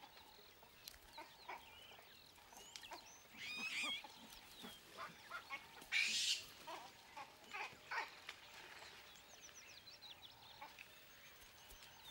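Faint wildlife ambience of scattered short, high animal calls, with a longer warbling call about three and a half seconds in and a louder call about six seconds in.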